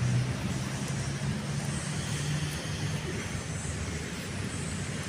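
Motor vehicle running, a low engine hum over steady background noise that eases after about two and a half seconds.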